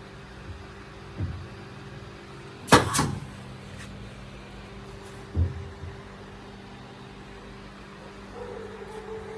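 Three knocks over a steady low hum, the middle one a sharp, loud clack that rings briefly.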